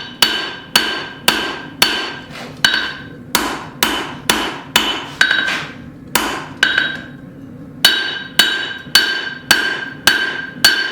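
Blacksmith's hammer striking hot square steel bar stock on an anvil, about two blows a second with a ringing tone after each, hammering a set down into the bar. The blows thin out briefly just past the middle, then resume at the same pace.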